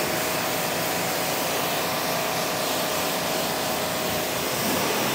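Pressure washer jet spraying water onto a car's bodywork: an even hiss of spray with a constant whine underneath.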